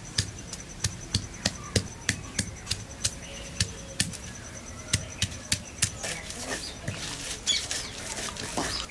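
Garlic cloves being pounded with a stone pestle on a flat grinding stone: sharp stone-on-stone knocks, about three a second. About six seconds in they give way to quicker, rougher grinding strokes as the crushed garlic is worked into a paste.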